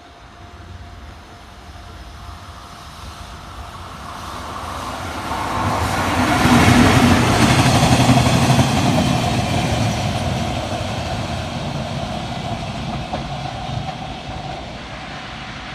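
Freight train running past on the line, returning the empty heavy-load wagon Shiki 801 and brake van Yo 8404: the noise swells as the train approaches, is loudest about six to nine seconds in, then slowly fades as it goes away.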